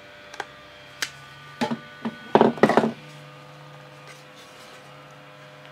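A few light knocks, then a louder clatter of wood and plastic about two and a half seconds in, as a quick-release clamp is taken off a glued wooden part of a staking-set box and the piece is handled on the workbench. A steady mains hum runs underneath.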